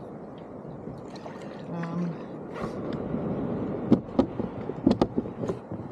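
Double-bladed kayak paddle strokes: blades dipping and pulling through the water beside the hull, with splashing and gurgling, and from about four seconds in a series of sharp knocks and splashes as the strokes go in.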